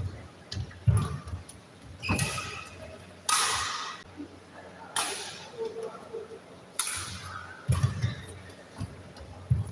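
Badminton rally: sharp racket strikes on a shuttlecock, about eight in all, each a second or so apart. Players' footfalls and shoe squeaks on the court floor sound between the strikes.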